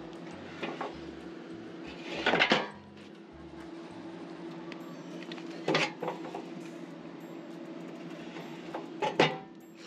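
Metal clanking of a steel RV stabilizer jack's arms and frame being handled on a wooden bench: a short clatter about two seconds in, the loudest, another near the middle and one near the end, over a steady low hum.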